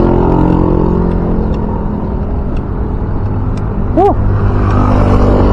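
Road traffic heard while cycling, with wind rumbling on the microphone. The engines of passing motorcycles hum steadily, and there is one short high chirp about four seconds in.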